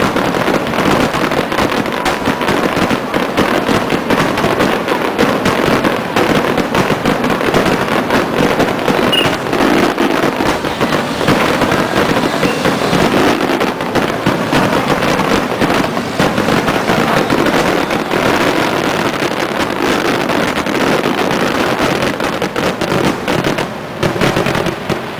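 Aerial fireworks bursting in a loud, rapid, continuous barrage: many overlapping bangs and crackles with no pause between them.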